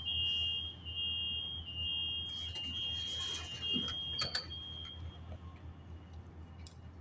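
Metrolink passenger coach's door-closing warning: a high electronic beeping tone that pulses for about five seconds, with a couple of sharp clicks about four seconds in and a low steady hum underneath.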